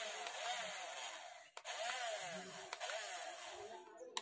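Twin small electric motors of a toy RC speed boat running with the boat held out of the water, propellers spinning in the air: a buzzing whine whose pitch keeps wavering up and down, with a short dip about one and a half seconds in.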